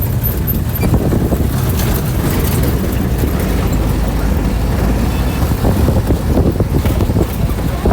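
Road vehicle noise: a loud, steady low rumble of a moving vehicle's engine and tyres.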